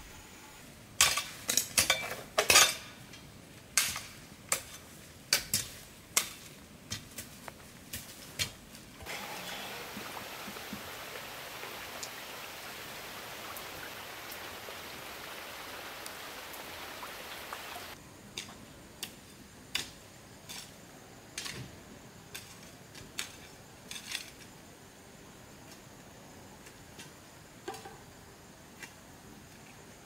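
Dishes and utensils clinking in a series of sharp knocks. About nine seconds in, a steady hiss starts, runs for about nine seconds and cuts off suddenly. Then more scattered clinks follow.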